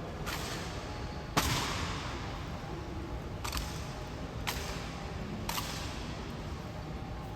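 Honor guard rifle drill: rifle butts stomped down in five sharp, echoing knocks. The loudest comes about one and a half seconds in, and the last three fall about a second apart.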